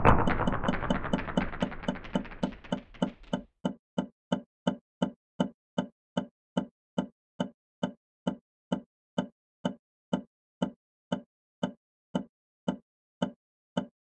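Electroacoustic music made from everyday household sounds: a steady, machine-even pulse of short, low knocks, nearly three a second. A dense noisy wash under the pulse fades away over the first three seconds, leaving the knocks alone.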